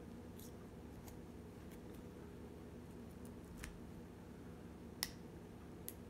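Faint metallic clicks of a lock pick working the pins of a small brass Wilson Bohannan padlock under tension: about five light clicks, the sharpest one about five seconds in.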